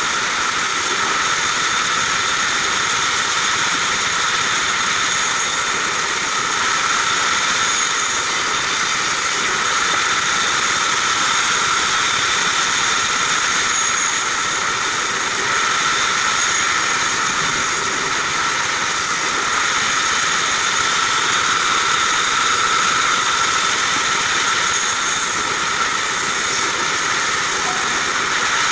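Band sawmill running steadily with a high whine while its blade cuts through short log sections.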